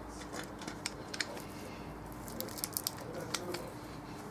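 Faint, scattered light clicks and handling noises from a bicycle wheel and tyre being worked by hand.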